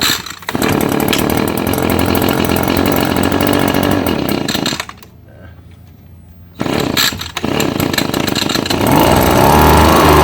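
Echo PB-2520 handheld leaf blower's two-stroke engine starting on a pull and running for about four seconds, then cutting out. It starts again about six and a half seconds in and runs louder and higher in pitch near the end as the throttle is opened.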